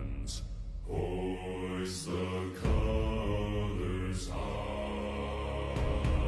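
Background music: low male voices singing a slow sea shanty in long held notes over a deep drone.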